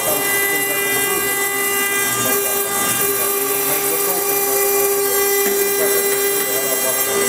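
CNC-1218 router spindle running at high speed with a steady whine, its cutter milling a wet stone slab under water coolant.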